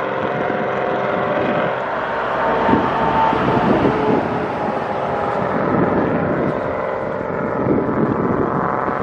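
Wind buffeting an unshielded camera microphone over a steady engine drone that holds several even tones throughout.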